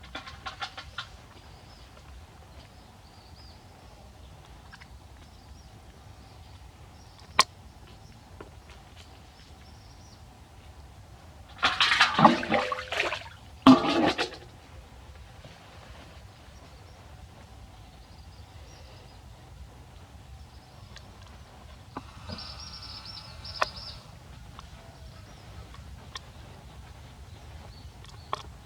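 Water pouring and splashing during a bath. The loudest is two bursts of gushing and splashing about twelve and fourteen seconds in, with a fainter patch of running water later, and a single sharp click earlier on.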